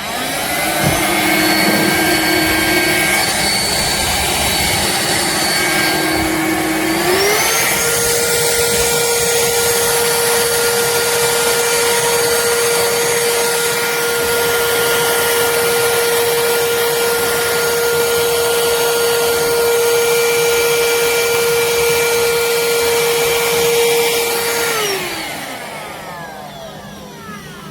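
BLACK+DECKER POWERSERIES+ 20V MAX cordless stick vacuum running, a steady motor whine. About seven seconds in the pitch steps up and holds, then near the end it falls and the motor winds down.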